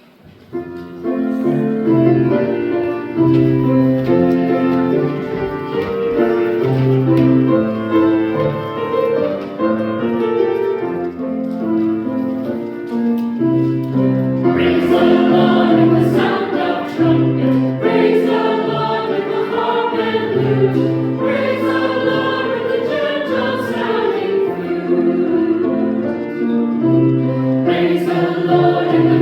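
Church choir singing a sacred anthem with piano accompaniment; about halfway in, the sound grows fuller and brighter.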